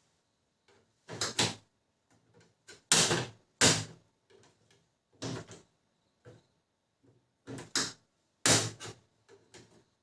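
Irregular knocks and clicks of Canon imageCLASS MF221d printer parts being handled and fitted back into place during reassembly, about half a dozen louder ones with fainter taps between.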